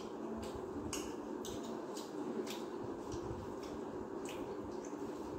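People eating rice and curry by hand: short wet chewing and lip-smacking clicks, irregular at about two a second, with fingers working food on steel plates, over a steady low background hum.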